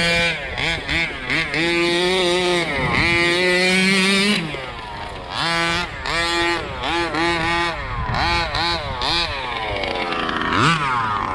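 The small two-stroke gas engine of a Rovan 1/5-scale RC truck being driven on dirt, revving up and down over and over, its pitch climbing and dropping with each burst of throttle.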